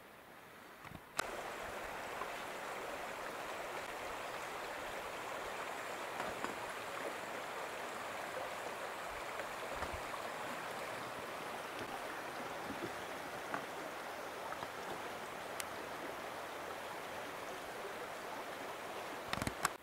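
Shallow creek flowing over stones, a steady rushing babble of water. It starts abruptly about a second in and cuts off just before the end.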